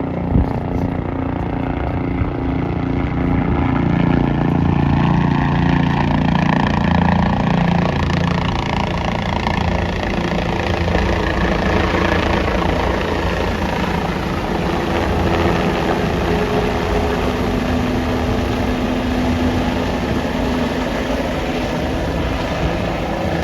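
Helicopter running close by: a loud, steady drone with a pulsing rotor chop.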